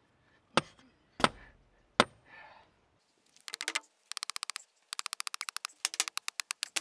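A hammer striking the top of a copper ground rod as it is driven into the soil: three sharp metal strikes with a high ring in the first two seconds, then a quick run of light, evenly spaced taps at about ten a second, in short bursts.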